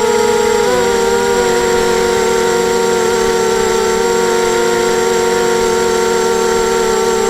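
Eachane Racer-250 quadcopter's motors and propellers whining steadily at a held throttle, the pitch dipping slightly about a second in.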